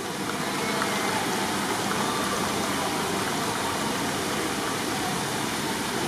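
Crowd applauding: a dense patter of clapping that swells over the first second and then holds steady.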